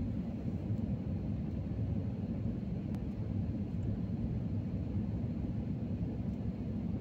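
Steady low rumble of a jet airliner's engines and rushing air, heard from inside the passenger cabin as the plane descends on its landing approach.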